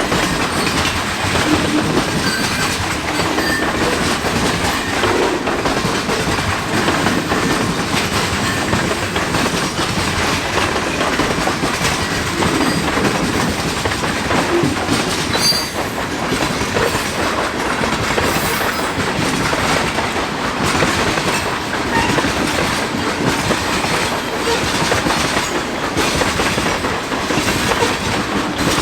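Cars of a mixed freight train rolling steadily past, their wheels clacking over the rails, with a brief high wheel squeal about halfway through.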